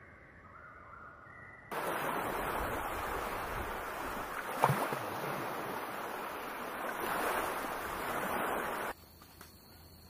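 Sea surf washing on the water, a steady rushing noise that cuts in suddenly about two seconds in and stops abruptly about a second before the end, with one short sharp sound near the middle.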